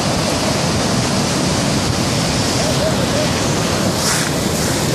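Sea surf breaking and washing up the shore, a steady rushing noise mixed with wind buffeting the microphone, with a brief louder hiss about four seconds in.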